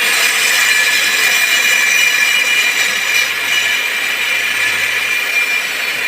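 Electric grinder running steadily, with a loud high-pitched whine.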